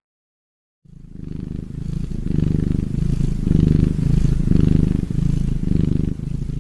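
A cat purring: a low, fast-pulsing rumble that starts about a second in and swells and eases with each breath, about twice a second.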